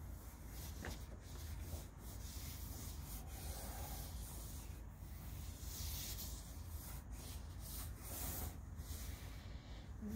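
A dark drawing stick scraping across paper clipped to a drawing board, drawn as one continuous line, with a few brief breaks where the stroke lifts or turns.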